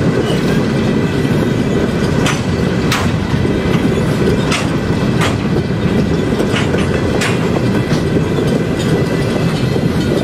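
Empty coal hopper cars of a freight train rolling past: a steady heavy rumble of steel wheels on rail, with sharp clacks as the wheel sets cross rail joints, mostly in pairs a little over half a second apart.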